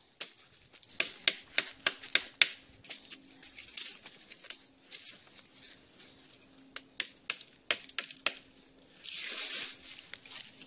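Footsteps crunching through dry leaf litter on a jungle trail, with irregular sharp cracks of twigs snapping underfoot. A longer rustle of leaves comes about nine seconds in.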